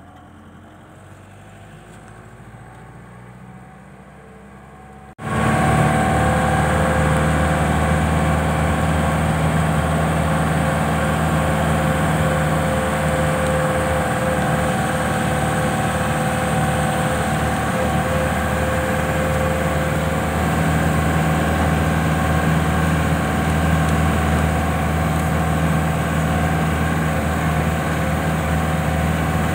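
Engine of a moving vehicle running at a steady drone, heard close from on board. It is fairly quiet at first, then about five seconds in the sound jumps suddenly much louder and stays steady.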